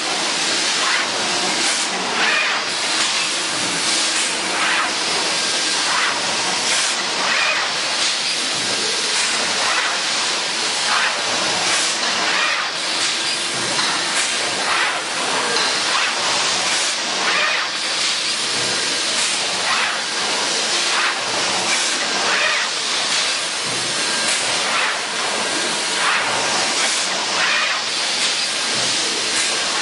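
Automated pneumatic spool-winding machine running: a steady hiss of air and machinery, broken by short clacks and puffs about once or twice a second as its cylinders and arms cycle.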